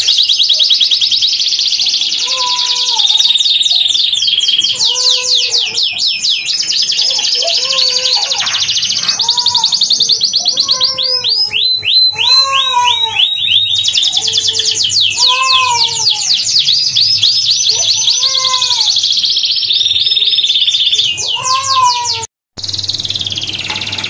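Domestic canary singing: long, fast trills and rolls, high-pitched and nearly unbroken, with a lower repeated note about every second and a half underneath. The sound cuts out for a moment near the end.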